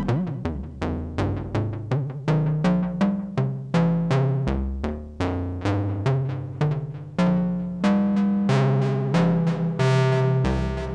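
Electronic music played live on synthesizers: a quick run of short plucked-sounding notes, about three a second, each dying away fast, over a bass line that steps between notes.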